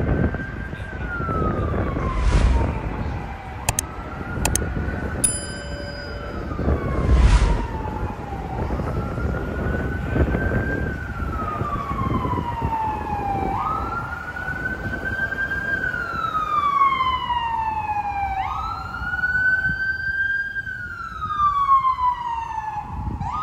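Emergency vehicle siren in wail mode, rising quickly and then falling slowly, repeating about every five seconds, over steady street noise.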